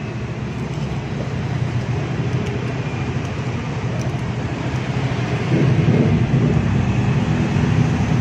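Low, steady mechanical rumble that grows gradually louder, loudest from about five and a half seconds in.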